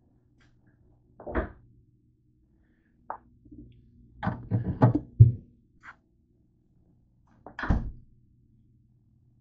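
Kitchen handling knocks and thuds, with a low steady hum underneath: a metal bowl of grapes is set onto a glass refrigerator shelf, with a loud cluster of knocks about halfway through. Another thud comes near the end, like the fridge door shutting.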